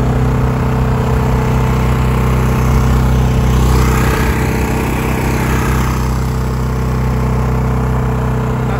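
Champion 2200 W Mighty Atom dual-fuel inverter generator, a small single-cylinder engine, running steadily on propane with an even hum. It grows a little louder for a few seconds in the middle as the microphone passes close to its exhaust side.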